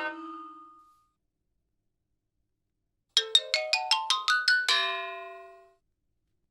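Comedy sound effect: a quick rising run of about ten bell-like mallet notes, like a glockenspiel or xylophone climbing a scale, ending on a lower note that rings out. It comes after a second or two of silence, following the fading tail of the previous effect.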